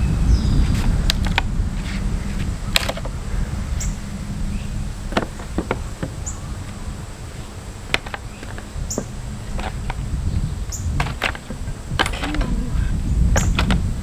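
Pallet boards being pried off with a pallet buster: scattered sharp cracks and knocks of wood, with short squeaks as nails pull out, over a steady low rumble.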